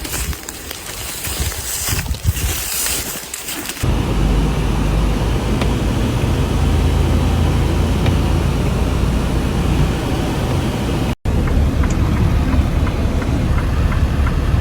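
Gusty wind buffeting the microphone, then a steady low rumble of a vehicle driving, heard from inside or close by. Faint regular ticking, about two or three a second, runs over the rumble in the last few seconds.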